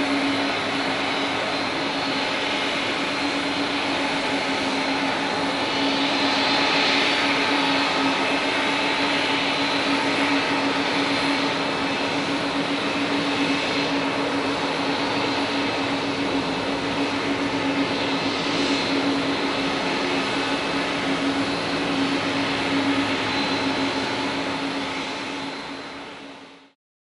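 Jet airliner engines running steadily: a whine of several steady tones over a constant rushing roar, swelling slightly a few seconds in, then fading out at the very end.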